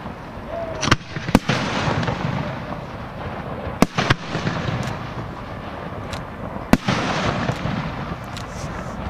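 Aerial firework shells bursting: sharp bangs about a second in, twice near four seconds and once near seven seconds, with smaller pops and a continuous wash of display noise between them.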